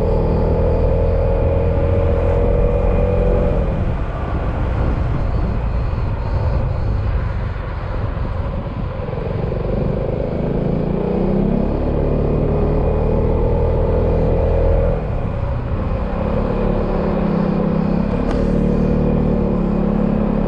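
Yamaha XMAX scooter's single-cylinder engine running on the move, its pitch rising slowly as it pulls through three stretches of acceleration. Around four to nine seconds in the engine eases off and wind and road noise take over.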